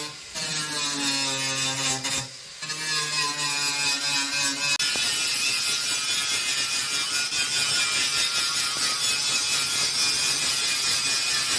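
Angle grinder running at speed with a steady whine, dipping briefly about two seconds in. From about five seconds in, a harsh steady hiss takes over as it grinds the car body's metal.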